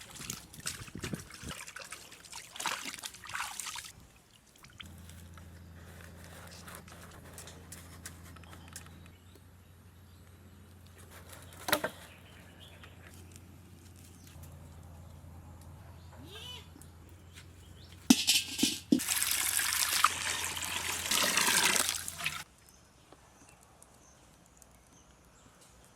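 Water splashing and being poured in short spells, the loudest a steady pour of about four seconds near the end. A faint low hum runs underneath in the middle.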